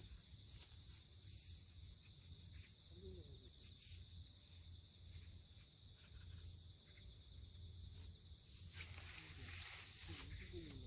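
Wind buffeting the microphone as a faint low rumble, with a steady high hiss behind it, getting a little louder near the end.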